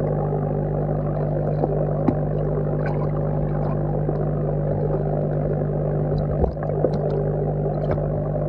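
Aquarium air pump humming steadily, heard through the water as an even low drone, with small clicks and ticks of air bubbles from the airline scattered through it.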